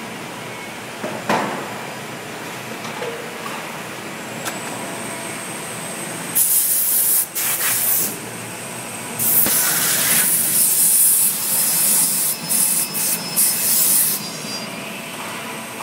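Panhans Euro 12 panel beam saw running through a cycle: a steady machine hum with a click about a second in, then loud, high hissing bursts from about six to eight seconds and again from about nine to fourteen seconds.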